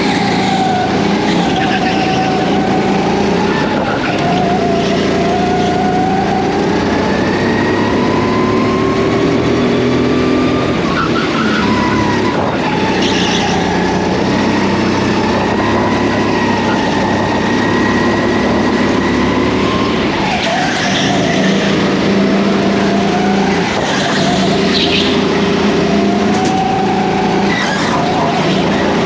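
Go-karts running on a track, their motors rising and falling in pitch as they speed up and slow down through the corners, with several karts heard at once.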